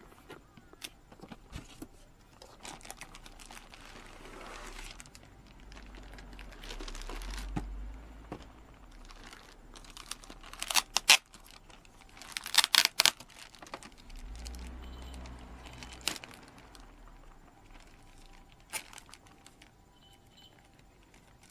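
Cardboard box flaps and a clear plastic packaging bag being handled, rustling and crinkling, with a few loud sharp crackles of the plastic about halfway through.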